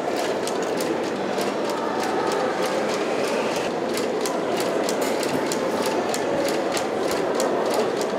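A machine running in an exhibition hall: a steady mechanical din with a regular train of sharp clicks, about four a second.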